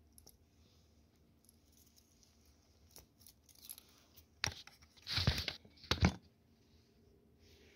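A metal-linked belt of 7.62×39 mm cartridges clinking and rattling as it is handled, in a few short clattering bursts after about three seconds of near silence.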